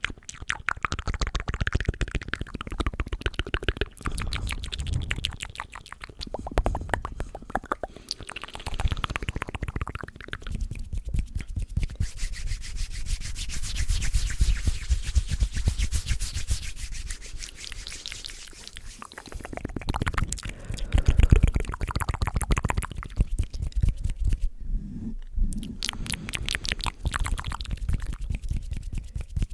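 ASMR mouth sounds right at the microphone: dense, rapid wet clicking and smacking of lips and tongue, with short lulls about eleven seconds in and again near the end.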